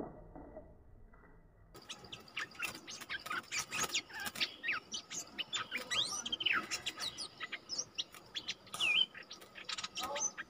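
Stripe-throated bulbuls calling in quick, short whistled notes, some rising and some falling, mixed with sharp clicks. The calls start about two seconds in after a quiet, dull opening.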